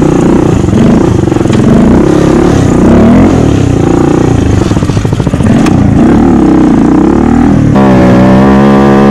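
Stunt motorcycle engine revving up and down over and over, then held at one steady pitch for the last second or so.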